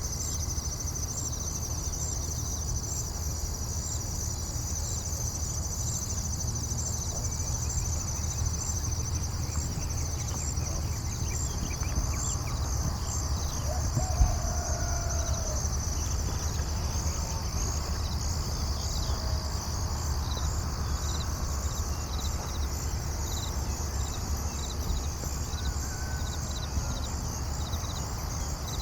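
Insects trilling steadily in high, evenly pulsing notes over a low, steady rumble. A few faint bird calls come in partway through, and there is a single brief knock about halfway.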